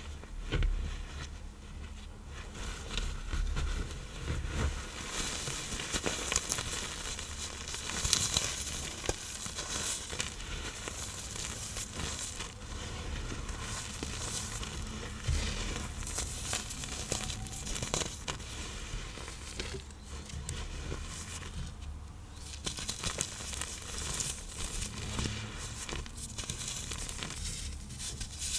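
Reformed blocks of iron oxide powder and cornstarch being crushed: a dense, continuous crumbling crackle of many small cracks.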